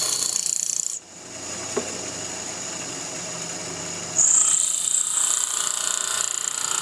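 Bench grinder wheel grinding a mild steel lathe tool blank, a high-pitched hiss as the metal is pressed to the wheel while shaping the top rake of a left-hand tool. The blank comes off the wheel about a second in, leaving the grinder running quieter, and is pressed back on about four seconds in.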